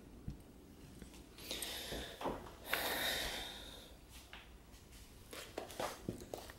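Quiet handling noise from gift packaging on a table: two soft rushes of noise about a second and a half and three seconds in, then light rustles and taps near the end as a paper gift bag is handled.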